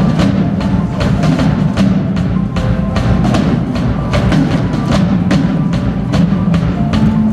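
Instrumental music with drums and a steady clicking beat, about three to four clicks a second, over a dense bass line.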